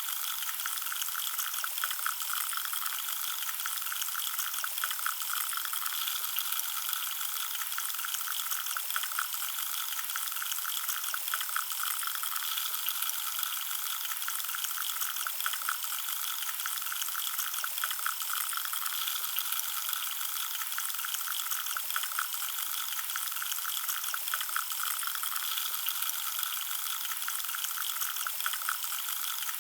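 Carbonated drink fizzing steadily, a dense high hiss of many tiny bubbles popping and crackling at the surface.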